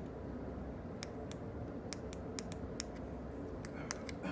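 Irregular small clicks over a steady low background rumble; no car alarm sounds.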